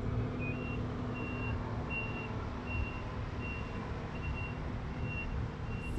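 A vehicle's reversing alarm beeps in a steady rhythm, about one high beep every three-quarters of a second. Under it runs the low, steady rumble of harvest machinery.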